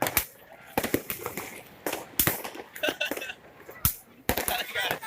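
New Year fireworks bursting: a quick, irregular series of sharp bangs, at times several a second, with people's voices in between.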